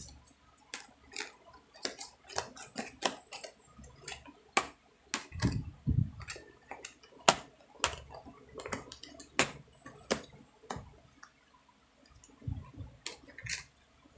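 Thin plastic food-container lids being pressed and snapped onto plastic tubs: an irregular run of sharp clicks and crackles, with a few soft low thumps.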